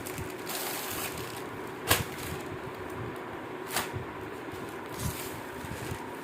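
Parcel being handled for unboxing: three short sharp clicks or knocks, the loudest about two seconds in, over a steady background hum.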